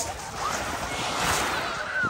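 A sea wave breaking on a shingle beach and washing up over the pebbles, swelling to a rush in the middle and fading again.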